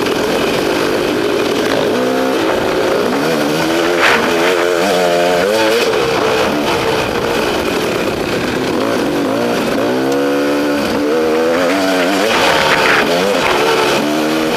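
KTM XC-W two-stroke enduro dirt bike engine under way, revving up and falling back again and again as the throttle is worked, with steady wind rush on the helmet microphone. A couple of brief sharp knocks stand out, about four seconds in and near the end.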